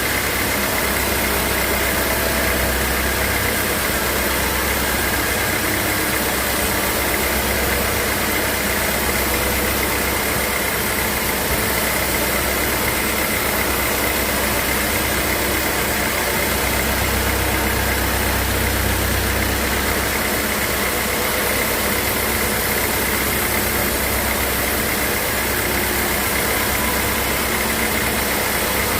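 Sawmill machinery running steadily: a constant, loud mechanical noise with a low hum and a steady whine, no pauses or changes.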